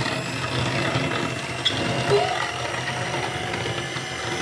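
Electric hand mixer running steadily, its twin wire beaters whisking a thin cake batter of eggs, milk, oil and just-added sugar in a bowl.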